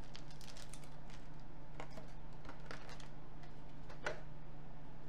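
Plastic packaging crinkling and small plastic parts clicking as a boxed figure's bagged pieces are unwrapped by hand: a scattered run of light, irregular ticks over a steady low hum.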